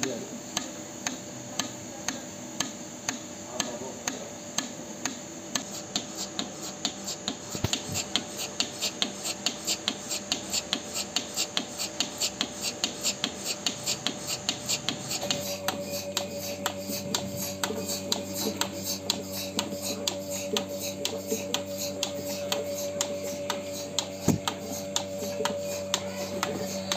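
Milking-machine pulsator clicking in a steady rhythm, about two to three clicks a second, over a steady hum. The hum and the clicking grow denser about halfway through.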